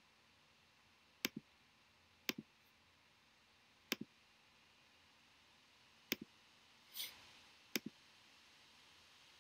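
Faint computer mouse clicks: five double clicks, each a press and release, spaced one to two seconds apart, with a brief soft rustle about seven seconds in.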